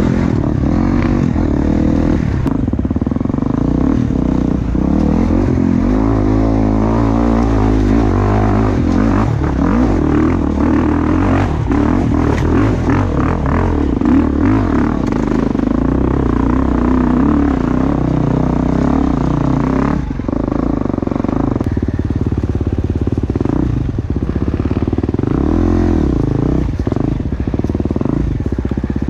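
Gas Gas 350 four-stroke single-cylinder dirt bike being ridden, its engine note rising and falling as the throttle opens and closes, with scattered knocks and rattles.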